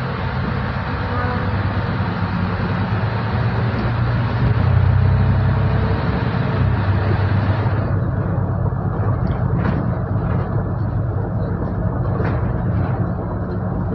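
Solaris Urbino 12 IV city bus driving, heard from inside: a steady low engine drone with road noise, loudest about four to six seconds in. A hiss of higher noise cuts off abruptly about eight seconds in, leaving the engine drone.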